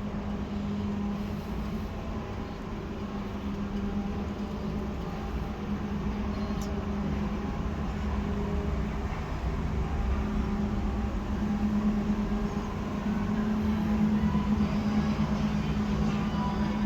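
Steady mechanical hum with a constant low tone, slowly growing louder.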